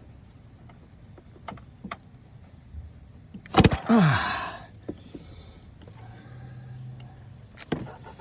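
Clicks and a sharp metal clank of a wrench or breaker bar being worked on a seized bolt on a Volvo five-cylinder engine, with a short hiss after the clank; the bolt does not budge.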